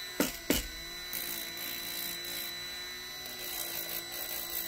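Milwaukee M12 rotary tool running steadily at one speed, driving a flex-shaft grinder extension, with a faint high hiss that comes and goes. Two sharp knocks near the start.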